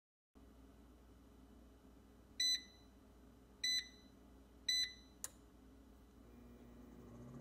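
Cosori 3.7-quart air fryer's touch panel beeping three times, short high beeps about a second apart as its buttons are pressed, then a sharp click. Near the end its fan starts up with a low hum that rises in pitch as a 400°F cook cycle begins.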